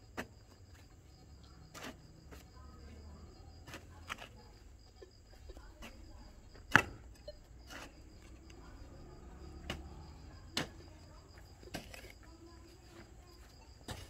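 A short-handled digging hoe chopping into damp, packed soil, with irregular strikes of the blade, the loudest about seven seconds in. Crickets chirp steadily behind it.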